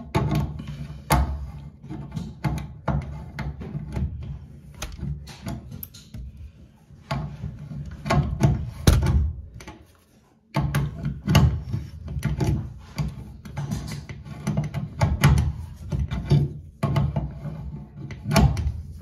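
Metal wrench jaws clicking and knocking against the chrome fittings as the nut of a braided stainless water supply line is tightened onto a toilet's angle stop valve, with a brief break about ten seconds in.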